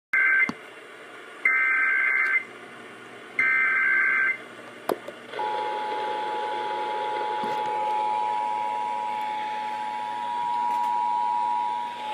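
Emergency Alert System signal received over AM radio. First come three bursts of the SAME header's warbling digital data tones, the first cut short. About five seconds in, the steady two-tone EAS attention signal begins and holds, with radio static underneath.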